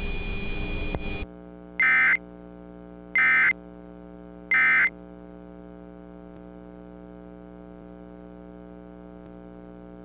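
Emergency Alert System end-of-message signal: three short, identical digital data bursts about a second and a half apart, marking the close of the alert. Under them a steady low electrical hum continues after a hiss with a thin high tone cuts off about a second in.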